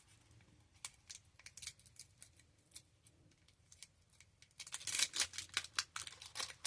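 Trading-card pack wrapper crinkling faintly as it is handled, then a denser run of crackling and tearing about four and a half seconds in as the pack is torn open, the wrapper not tearing cleanly.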